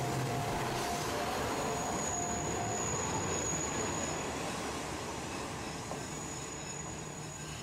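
Two-car JR Shikoku diesel railcar pulling away from a station platform, its engine humming and wheels running on the rails. A thin high squeal from the wheels rises about two seconds in and lasts a couple of seconds. The sound fades as the train draws away near the end.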